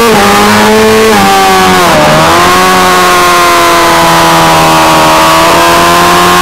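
600cc supersport racing motorcycle engine at high revs, heard close from the bike itself: the pitch steps down about a second in and dips sharply around two seconds in as the bike slows for a corner. It then holds a steady high note that sinks slightly through the corner and starts to climb again near the end.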